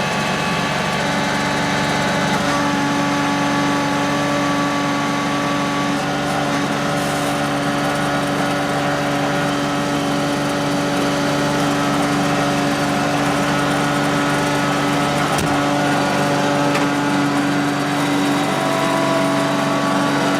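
Fuel-injected engine of a John Deere X585 lawn tractor running steadily, warming up after a cold start, with small shifts in engine speed.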